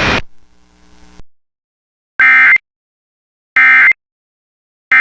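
Emergency Alert System end-of-message data bursts: three identical short, loud warbling digital chirps about a second and a half apart, marking the end of the alert. The third starts right at the end.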